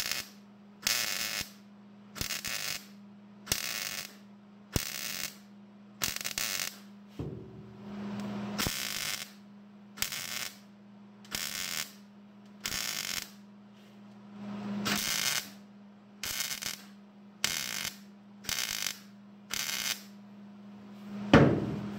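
Welder laying short stitch welds on thin truck sheet metal: about fifteen brief spurts of welding hiss, each under a second, with pauses between, over a steady low hum. Welding in short spurts is the patient way to keep thin sheet metal from burning through. A louder knock comes near the end.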